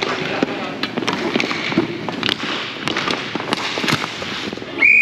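Irregular sharp knocks and thuds of play on a hard surface over a murmur of voices; just before the end a loud, long whistle blast cuts in, the loudest sound here.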